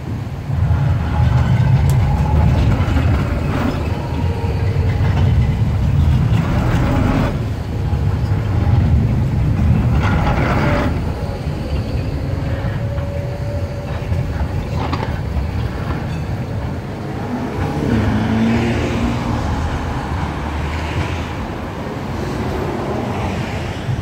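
A VBZ Be 5/6 Cobra tram passing close by at low speed, a steady low rumble that is loudest as it goes by and then eases off. A few sharp knocks come in between as its wheels run over the track points and crossings.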